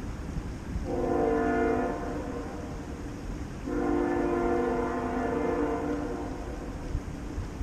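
Train air horn sounding twice: a short blast about a second in, then a longer blast from about three and a half seconds, each a steady chord of several notes.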